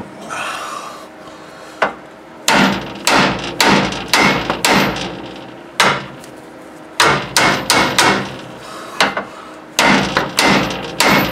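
Small sledgehammer striking the steel of a car's steering centerlink beside a tapered joint, in bursts of several quick metallic blows with short pauses between. The blows are shocking the tapered stud loose from its seat, and the joint is coming free.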